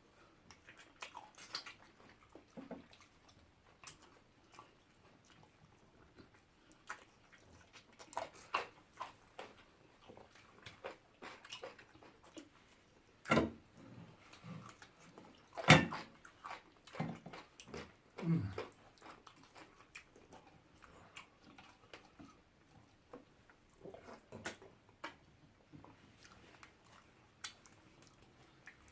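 Close-up mouth sounds of eating fufu with peanut pepper soup: scattered chewing, lip smacks and wet slurps, with a few sharper clicks a little after the middle.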